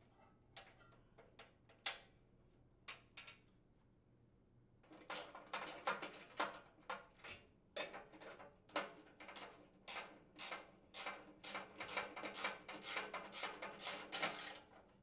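A few light metal clicks as a screw and speed clip are set in place, then, from about five seconds in, a socket ratchet clicking rapidly as it drives a mounting screw home.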